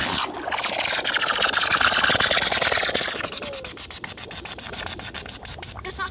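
Small firework spraying sparks with a loud hiss for about three seconds, then sputtering in rapid crackles that fade as it lies in the shallow water.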